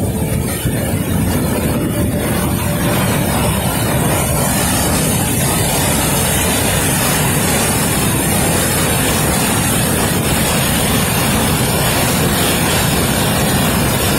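Waterfall running: a loud, steady rush of white water pouring down over rocks.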